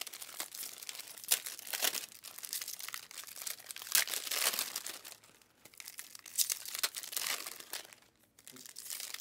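Foil trading-card pack wrappers being torn open and crinkled, in irregular bursts of crackling with short lulls.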